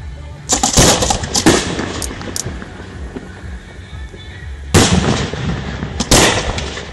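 Aerial firework shells bursting: a quick run of loud bangs from about half a second to two and a half seconds in, then two more single bangs near five and six seconds, each trailing off in an echo.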